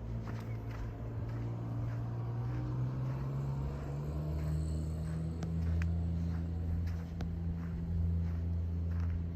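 An engine or motor running with a steady low hum that shifts in pitch about four seconds in, with footsteps and small clicks over it.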